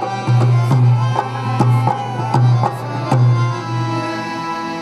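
Live Indian music: a hand drum, tabla-like, beats out deep strokes at about three a second over held keyboard tones. The drumming stops about three seconds in, leaving the keyboard notes sounding.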